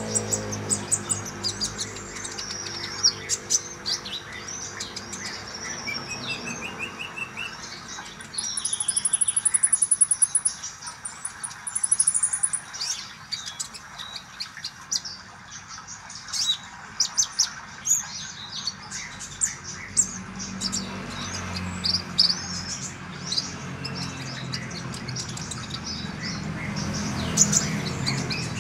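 Konin songbird singing: a fast, busy mix of high chirps and twittering phrases. A very high, buzzy trill comes in about eight seconds in and again near twelve seconds.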